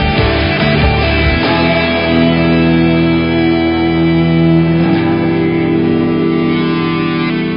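Background music: a rock track led by electric guitar.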